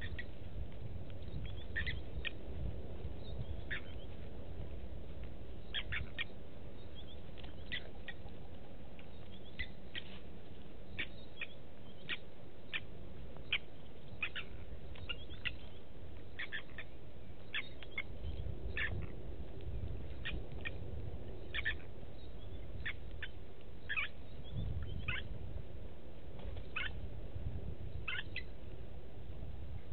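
Blacksmith lapwings calling: short, sharp clinking 'tink' notes repeated irregularly, about one or two a second, over a steady low rumble.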